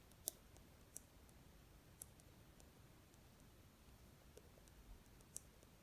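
Near silence broken by a handful of light, sharp clicks of a ballpoint pen tip touching down on paper while writing, the sharpest about a third of a second in and another near the end.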